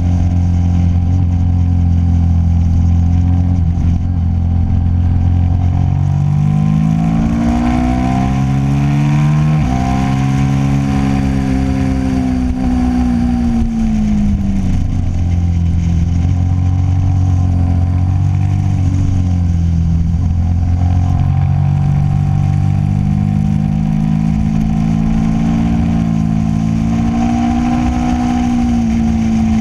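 Sport-bike engine heard from on board at track speed, its pitch climbing, stepping at a gear change, falling away and climbing again as the rider works the throttle, over a steady rush of wind.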